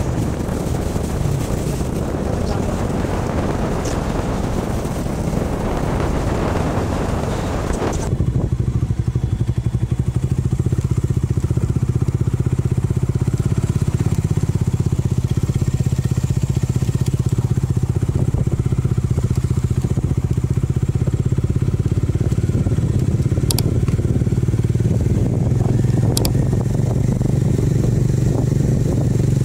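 Motorcycle engine running as the bike is ridden, with wind rushing over the microphone for the first eight seconds or so. About eight seconds in the rushing stops abruptly and a steady, lower engine hum carries on.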